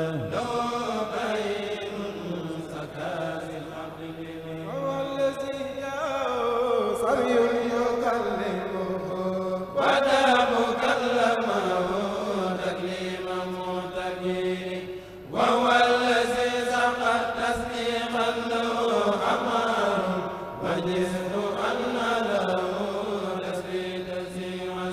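A Mouride kourel, a group of young men, chanting an Arabic khassida together through microphones, in long held, ornamented notes. A new, louder phrase comes in about ten seconds in and again about fifteen seconds in.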